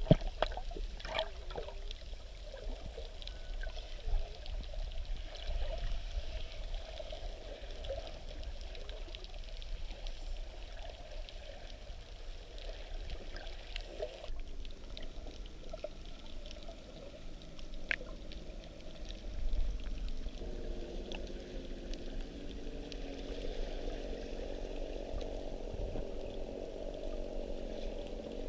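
Muffled water sloshing and bubbling as heard by a camera underwater, with scattered sharp clicks. About two-thirds of the way through, a faint steady drone joins it.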